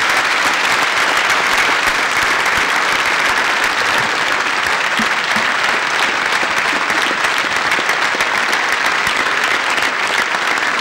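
Sustained applause from an audience clapping, a dense, steady patter of many hands.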